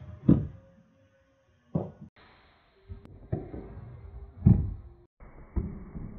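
Bottom edge of an interior door bumping against a homemade hinged wooden wedge door stop on carpet: about five dull thuds spaced roughly a second apart, the loudest about half a second in and again about four and a half seconds in.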